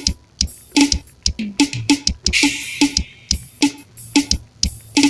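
Real Drum virtual drum-kit app with its forró sound set, heard through the phone's speaker: a steady groove of kick, snare and tom hits, about three a second, with a cymbal crash about two seconds in.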